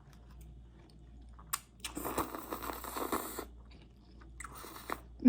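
Close-miked chewing of spaghetti with meat sauce, with a longer noisy mouth sound lasting about a second and a half about two seconds in, and a shorter one near the end.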